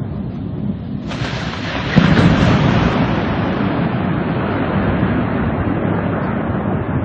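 Thunder: a low rumble, then a sudden crack about a second in and a heavier clap about two seconds in, rolling on loudly afterwards.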